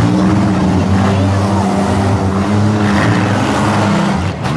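Demolition derby compact cars' four- and six-cylinder engines running and revving hard, with pitch rising and falling as the cars drive and ram. There is a short drop in level near the end.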